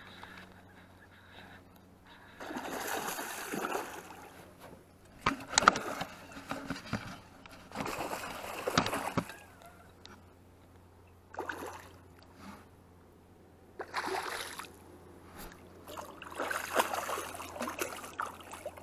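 A hooked largemouth bass splashing and thrashing at the water's surface in repeated bursts as it is fought in beside a small boat.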